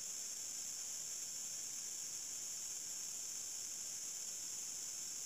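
Steady high-pitched drone of an insect chorus, crickets or cicadas, from the riverside forest, running unbroken.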